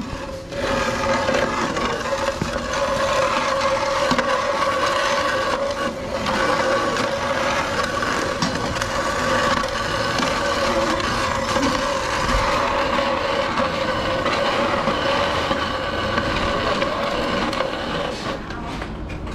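Metal scoop shovel pushed along a cattle feed trough, scraping out leftover feed in one continuous scrape. A steady tone runs underneath and stops near the end.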